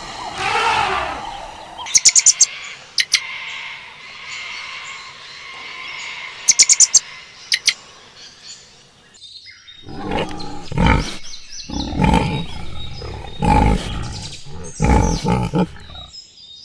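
Animal calls: two quick runs of sharp chirping clicks, then five or six loud, rough calls in the second half.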